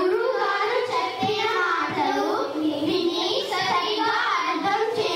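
A group of children singing together into microphones.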